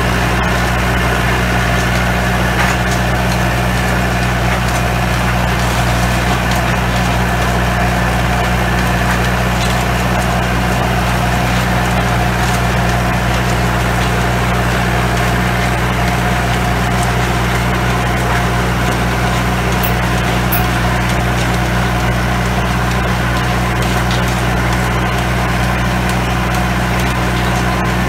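Antonio Carraro TRX 9900 tractor's diesel engine running steadily while its rear rotary tiller churns through greenhouse soil.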